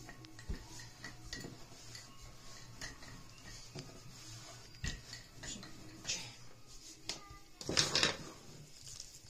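Rolling out manty dough: a wooden rolling pin rolls and knocks on a wooden tabletop, with scattered light taps. About eight seconds in there is a louder clatter as a plastic bowl is handled.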